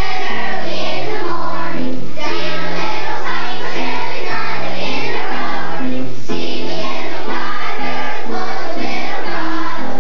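Children's choir singing a song together, with a steady musical accompaniment underneath.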